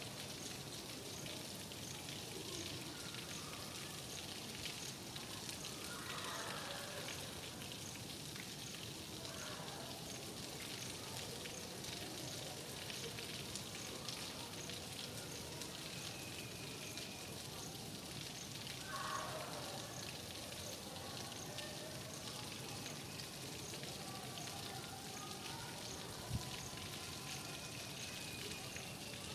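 Steady rain falling, an even hiss of pattering drops.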